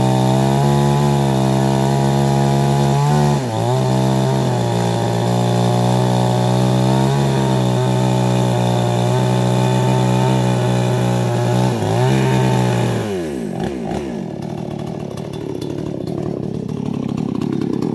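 Two-stroke chainsaw running at high revs as it cuts through the wooden bridge deck planks, its note dipping briefly twice, then winding down toward idle about thirteen seconds in.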